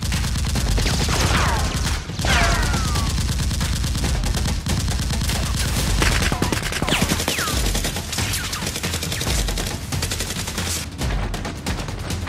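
Dubbed-in gunfire sound effects: a dense, continuous volley of rapid automatic shots, with a few descending whistles, about three of them, laid over the firing.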